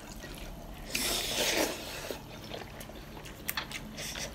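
Close-up eating sounds: instant ramen noodles slurped in one long hiss about a second in, then chewing with a few small wet clicks near the end.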